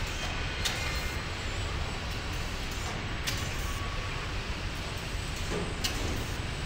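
Steady machinery noise of a robotic car-body welding line: a low rumble with hiss, broken by about three sharp clicks.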